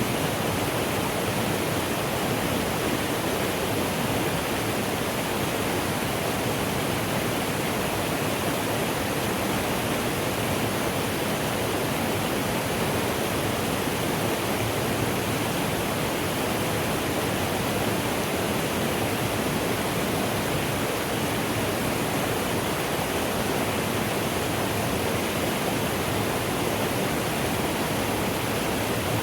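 Mountain stream flowing, a steady, even rush of water with no let-up.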